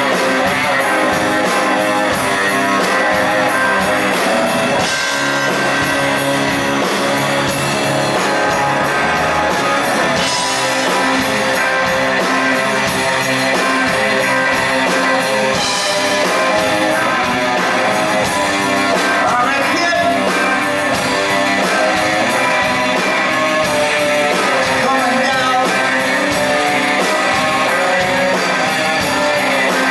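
Live rock band playing guitar-driven rock with singing, loud and continuous.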